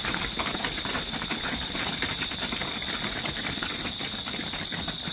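Wood fire in an open hearth crackling and popping with dense, irregular snaps, the fire burning well. A steady high-pitched tone sounds behind it.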